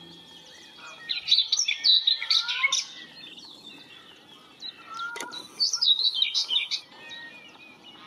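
A songbird singing two phrases of rapid, high, varied warbling notes, each about a second and a half long, with fainter lower whistles from other birds between them. A single sharp click about five seconds in.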